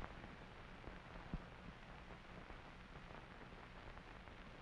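Near silence: the steady hiss and low hum of an old film soundtrack, with a sharp click at the start and a faint tick about a second and a half in.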